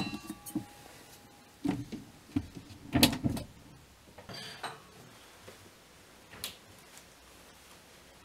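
A few separate knocks and clunks of objects being handled. The loudest comes about three seconds in, and a smaller click follows about six and a half seconds in.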